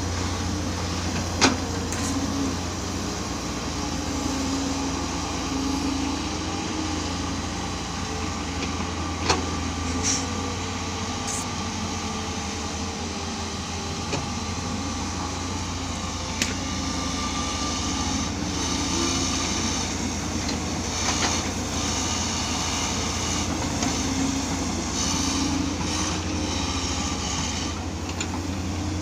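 Diesel engines of several hydraulic excavators running steadily under load while digging and loading soil, with a few sharp knocks and, over the second half, a higher-pitched whine.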